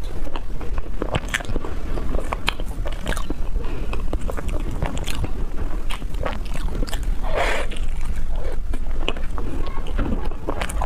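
Close-miked mouth sounds of eating a soft chocolate mousse dessert: wet chewing and repeated lip smacks and clicks, with light spoon scrapes on the dessert's plastic holder, over a steady low hum.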